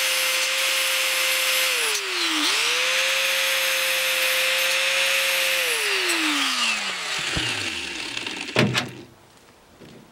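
Electric grinder running against a metal knockout disc from an electrical box, grinding it down to fit. It runs about two seconds, spins down, is started again and runs about three seconds more, then winds down slowly; a couple of knocks follow near the end.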